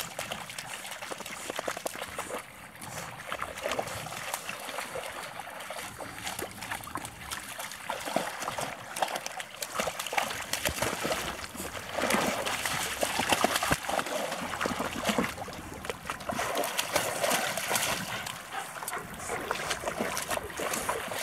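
Dogs wading through shallow water, their legs and paws splashing in an uneven patter that grows louder in stretches past the middle.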